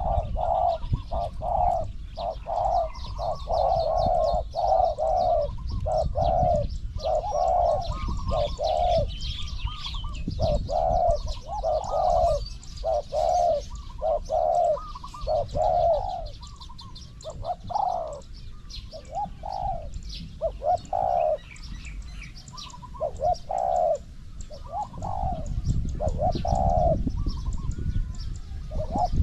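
Spotted doves cooing in long runs of quick, repeated notes broken by short pauses.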